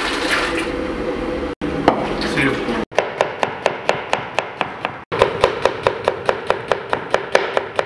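Knife chopping fast on a cutting board, an even run of sharp strikes about five a second, starting about three seconds in. It follows a short stretch of steady kitchen noise.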